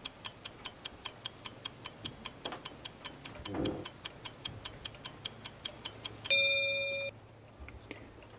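Countdown timer ticking evenly, about four ticks a second, then a single bell-like ding a little after six seconds in that fades and stops as the 15-second battery load test timer runs out.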